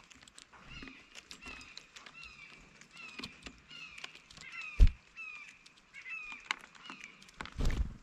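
Blue jays calling: a run of short, harsh calls, each sliding downward in pitch, repeated over and over, with small clicks between them. A loud thump comes a little before five seconds in, and a low rumble near the end.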